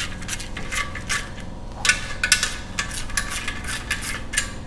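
A socket wrench and other metal tools working on the bottom end of an aluminium LS1 engine block: irregular metallic clicks, clinks and scrapes.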